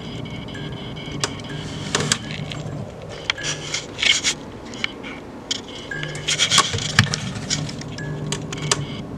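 End-of-life Philips TL-D 18 W fluorescent tube flickering on a magnetic ballast: a buzzing hum that comes and goes in irregular bursts as the tube strikes and drops out, with sharp clicks from the starter. The tube's electrode is burnt out, so it can no longer stay lit.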